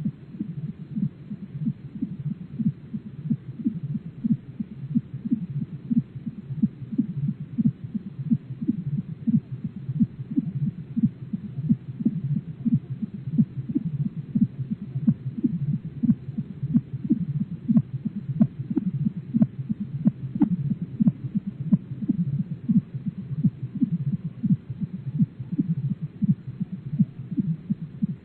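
A speculative dinosaur call made from bird recordings slowed down: a long run of rapid, low throbbing pulses, with faint higher clicks mixed in around the middle.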